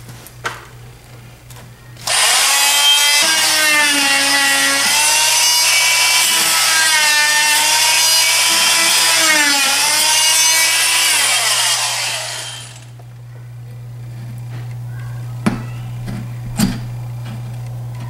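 Handheld power tool cutting an opening for a switch box into drywall. It runs loudly for about ten seconds, its whine dipping in pitch as the blade bites, then winds down. Afterwards there is a low hum and two light knocks.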